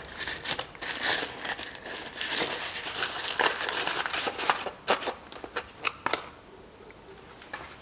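Crinkling, rustling handling noise with scattered small clicks as a new wheel bearing is taken from its wrapping and handled in gloved hands. It dies down about six seconds in.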